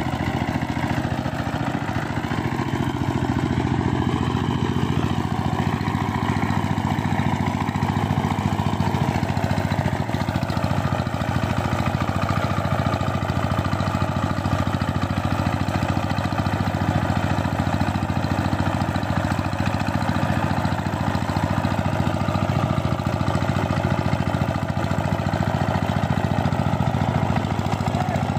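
Two-wheel power tiller's single-cylinder diesel engine running steadily while the machine ploughs through a wet paddy field.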